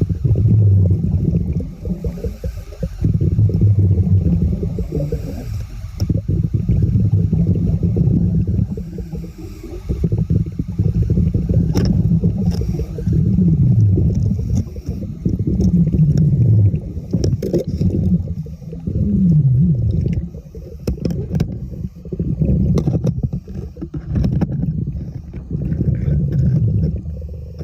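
Low rumbling, gurgling water noise as heard through an underwater camera, with a few short downward-sliding tones in the middle and scattered clicks.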